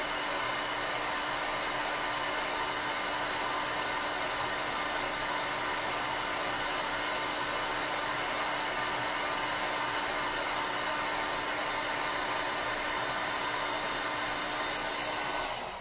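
Handheld heat gun blowing a steady rush of hot air with a steady low hum, drying wet watercolour paint. It is switched off and winds down at the very end.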